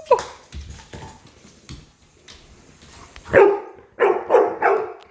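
Golden retriever barking four times in quick succession in the second half, a scared reaction to a toy cockroach, after a short yelp at the start. Light clicks and knocks on the laminate floor in between.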